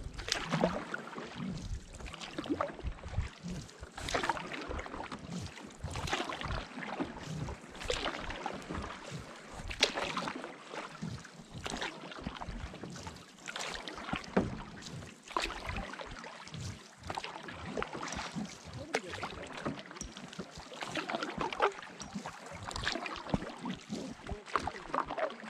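Canoe paddle strokes in the water, a splash and swirl recurring about every two seconds.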